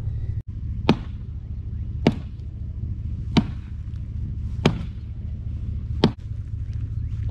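Six sharp blows at an even pace, about one every 1.3 seconds, over a steady low rumble: hammering at a seized wheel of the long-parked truck to break it free.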